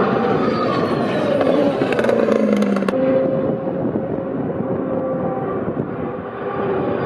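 2018 Super Formula racing cars' turbocharged four-cylinder engines running past on the circuit, their pitch rising and falling as they go by. There are a few sharp cracks about two to three seconds in.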